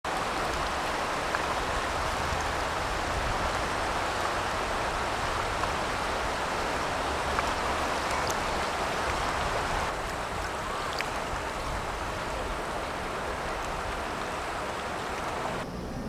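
Fast-flowing river water rushing over a stony riverbed: a steady rushing noise that drops slightly in level about ten seconds in.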